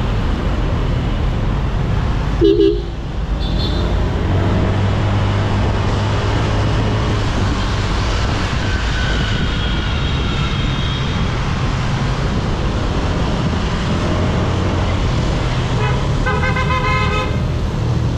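Honda Click 125i scooter's single-cylinder engine running under a steady rush of wind and traffic noise while riding in slow city traffic. A short horn toot comes about two and a half seconds in, and a longer horn blast near the end.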